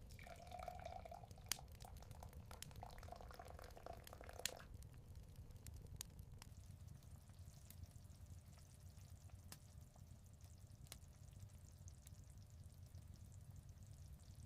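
Faint sound of liquid being poured for about four and a half seconds, with a few small clicks, then only a low hum and scattered faint ticks.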